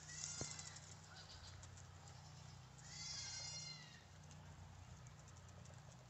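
Guinea pigs wheeking: two high-pitched whistling squeals, one at the start and one about three seconds in, each just under a second long and arching slightly up then down in pitch. Underneath is a faint low steady hum.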